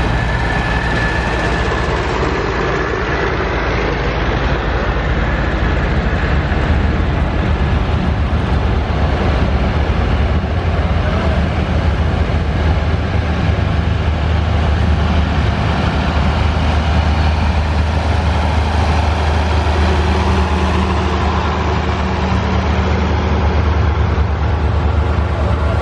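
Farm tractors pulling hay wagons drive slowly past one after another, their engines running steadily at low speed with a continuous low drone.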